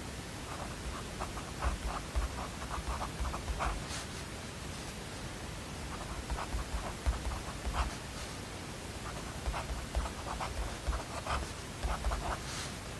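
Pen or pencil writing on paper in quick scratchy strokes, in three spells with short pauses between them, over a steady background hiss.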